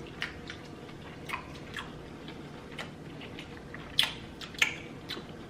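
Close-up eating sounds: wet chewing and lip smacks on sauce-covered seafood, a scatter of small mouth clicks with two sharper smacks about four seconds in.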